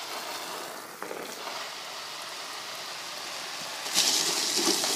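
Garden hose spraying a steady hiss of water onto the lawn. About four seconds in, a louder wet swish as a child lands on his knees and slides along the wet plastic slip-and-slide.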